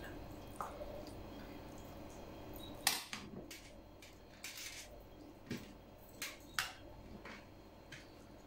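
Quiet, scattered clicks and short rustles of cabbage sarma being rolled by hand: a metal spoon knocking and scraping in a pot of rice filling, and cabbage leaves handled on a metal tray. The sharpest click comes about three seconds in.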